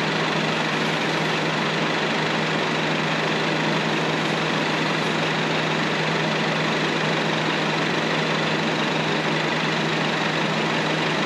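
Citroën car engine idling steadily, picked up close at the front grille, its oil freshly treated with Wagner MC oil additive. The meter at the grille reads a steady 68.3 to 68.7 dB.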